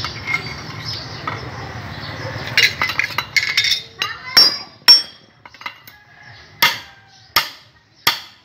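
Metal parts clinking as they are handled, then sharp ringing hammer blows on a steel tube driver, about one every three-quarters of a second near the end, driving a ball bearing down onto a motorcycle crankshaft.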